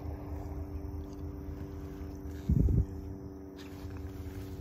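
Steady low hum and rumble, with one short, loud, low thump about two and a half seconds in.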